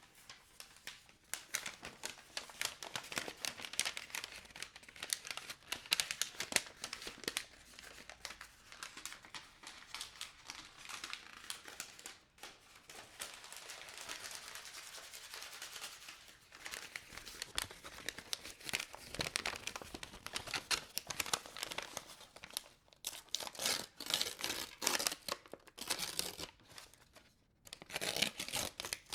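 Something being crumpled and crinkled by hand close to the microphone: a dense, irregular run of crackles with a few short pauses.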